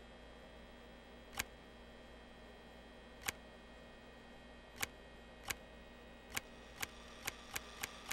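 Camera shutter clicks, one at a time, widely spaced at first and then coming faster and faster, over a steady hum.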